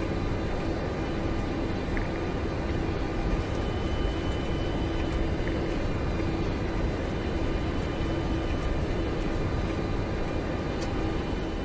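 Jet airliner's cockpit noise while rolling on the ground after landing: a steady rumble with a constant hum running through it.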